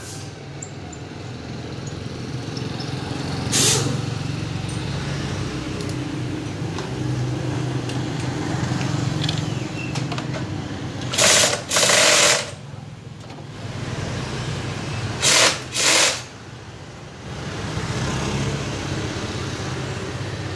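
A small engine running steadily, broken by five short, loud bursts of hiss: one about four seconds in, a pair about eleven to twelve seconds in, and another pair about fifteen to sixteen seconds in.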